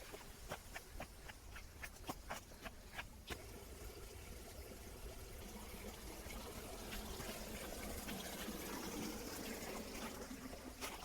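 Running water of a stream trickling and gushing over rocks. For the first few seconds it sits under sharp footsteps or knocks on rock; after that the water runs on its own and grows slightly louder.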